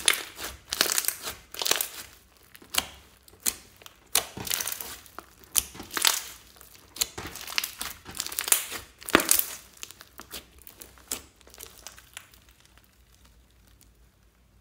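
Clear slime loaded with glitter and sequins being squeezed and kneaded by hand, giving a run of short, wet crinkling and crackling squishes about once or twice a second. The squishes trail off near the end.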